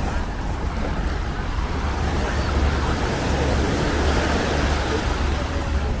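Small waves washing onto a sandy beach at the water's edge, over a steady low wind rumble on the microphone.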